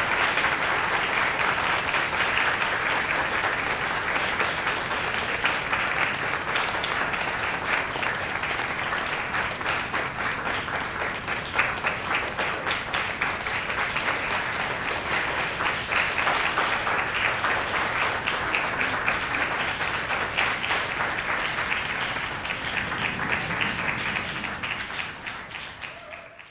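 A crowd applauding steadily, fading out near the end.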